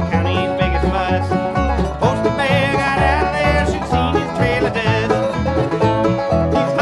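Bluegrass band playing an instrumental passage: banjo picking over guitar and bass, with other string lines gliding and bending in pitch above.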